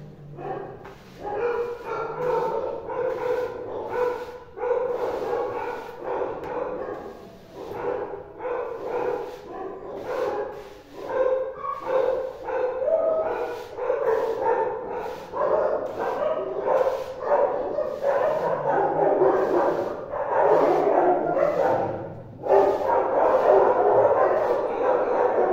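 Dogs barking and yipping over and over, with whining between the barks, getting louder and busier near the end.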